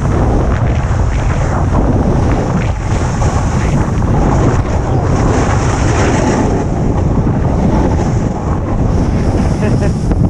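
Heavy wind buffeting the microphone of a camera carried by a moving snowboarder, under the hiss of the snowboard sliding and scraping over packed snow.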